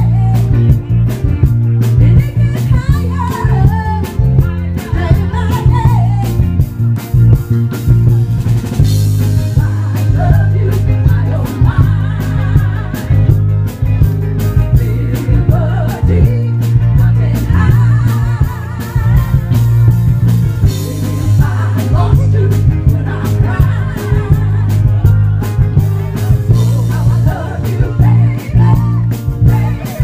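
Live performance of a Motown song by a female vocal group backed by a band with electric guitar and drums, played loud through PA speakers. The bass is very heavy and booming.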